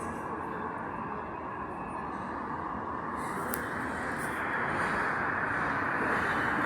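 Running noise of a Santiago Metro AS-02 train heard from inside the car: a steady rumble and rush. It grows louder and brighter about halfway through.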